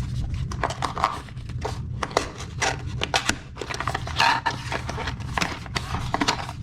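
A small cardboard box being opened and its contents handled: irregular scraping and rubbing of cardboard and packaging with many light clicks and knocks, over a steady low hum.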